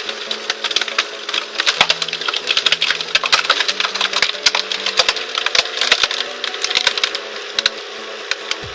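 A log being split by a firewood splitter: the wood cracks and splinters in many rapid, sharp snaps over the steady hum of the machine.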